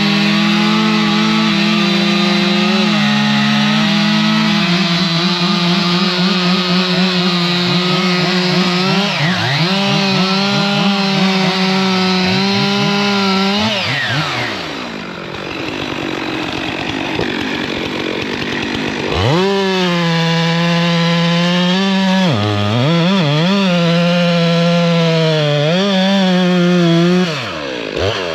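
Two-stroke chainsaw running at high revs, its pitch dipping repeatedly as the chain loads up in the wood and then recovering. About halfway through the engine note drops away for several seconds, then it revs back up and cuts again.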